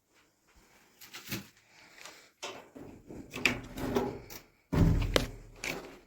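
Washing machine's rear casing being worked loose by hand: scattered knocks, clicks and scraping, with one heavy thump near the end.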